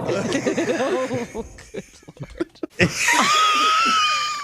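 A man's wheezing laugh: a run of quick laughing bursts, then a stretch of short gasps and clicks as the breath runs out, then from about three seconds in a long high-pitched wheezing squeal.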